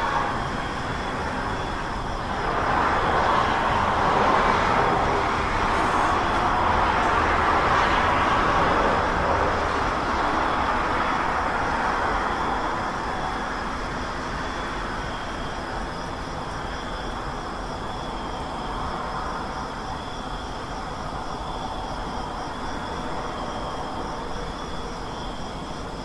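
Road traffic noise: a continuous wash of passing vehicles that swells louder for about ten seconds near the start, then settles back to a steadier level, with faint steady high-pitched tones above it.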